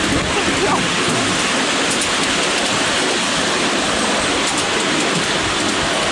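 Steady rushing noise of a miniature railway train running along its track, heard from a seat on the train, with a few faint clicks.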